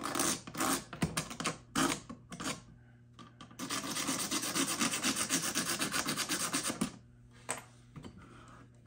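A hand rubbing hard across the weathered wooden lid of an old machinist's tool chest: a few separate scrubbing strokes, then a few seconds of fast, continuous rubbing that stops abruptly.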